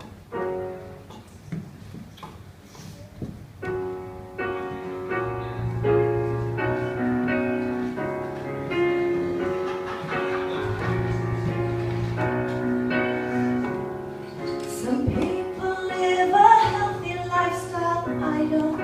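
Electronic keyboard with a piano sound playing the introduction to a song: steady held chords start about four seconds in, and a woman's singing voice comes in near the end.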